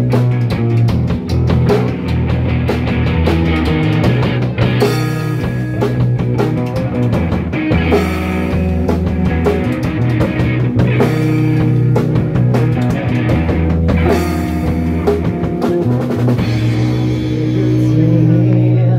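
Live rock band playing an instrumental passage: distorted electric guitar, bass guitar and drum kit, with no singing and cymbal crashes every few seconds.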